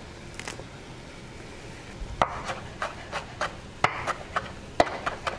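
Kitchen knife chopping fresh parsley on a wooden cutting board. A run of sharp, uneven knocks, a few a second, begins about two seconds in, and the loudest knock comes near the end.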